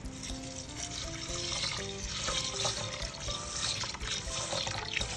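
Water being poured into a pot of washed rice, a steady pour of splashing water.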